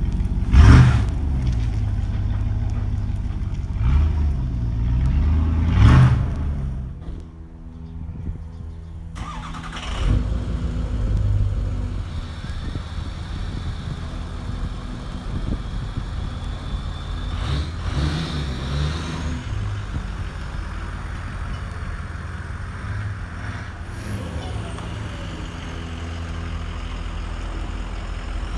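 Pickup truck engines running in the open, with three short, loud surges in the first six seconds as one truck pulls away, then a steady low rumble as another truck rolls slowly up.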